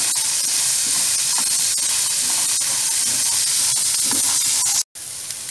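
Boiled black chickpeas sizzling loudly in hot oil in a frying pan while a wooden spatula stirs them, with light ticks of chickpeas and spatula against the pan. The sizzle cuts off abruptly about five seconds in, then comes back quieter.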